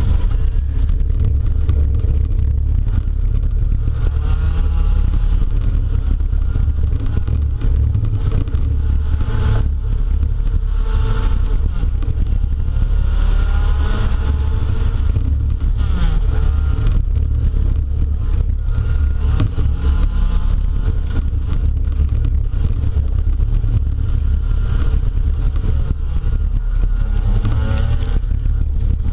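Speedway derby car's engine running hard, heard from inside the car, under a heavy low rumble. The engine note rises and falls every few seconds as it revs up and eases off.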